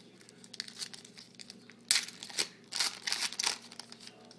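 Wrapper of a trading-card pack crinkling and tearing open by hand, a run of sharp crackles that is loudest in the middle.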